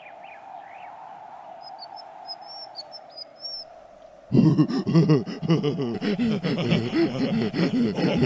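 Soft steady ambient noise with a few brief high bird chirps, then about four seconds in a man's loud laughter starts and continues to the end.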